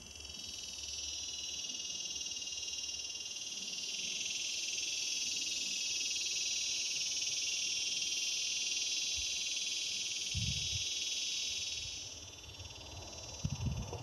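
Male cicada calling song: a steady, high-pitched metallic buzz that swells about four seconds in and fades away about two seconds before the end. A few low thumps come near the end.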